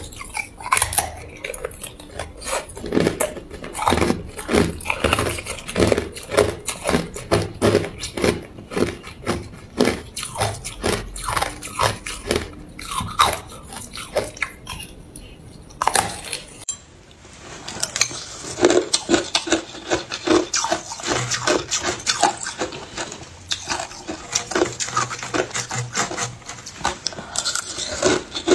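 Close-up crunching of clear hard ice: teeth biting off pieces of a thin ice sheet in a rapid run of sharp cracks and crunches. After a short lull about 17 seconds in, a denser, finer crunching and scraping of shaved ice follows.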